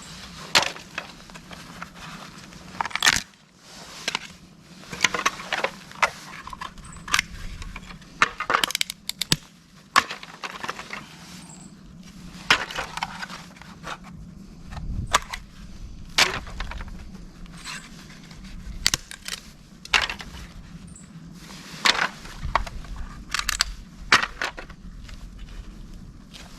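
Dry, dead bamboo being split apart into strips, with sharp cracking and splintering snaps coming at irregular intervals.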